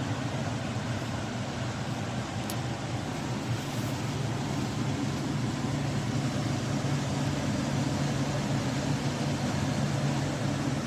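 Portable air conditioner running in cooling mode: a steady rush of fan air over a constant low hum.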